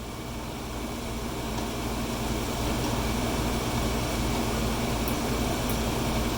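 Steady rushing noise of a running motor-driven machine with a low hum, growing louder over the first couple of seconds and then holding level.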